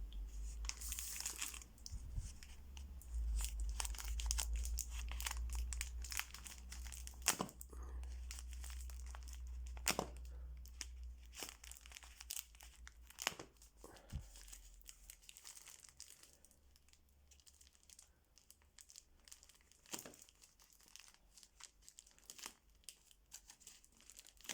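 Parcel packaging being torn open and crinkled, a run of irregular tearing and crackling sounds that thins out over the second half.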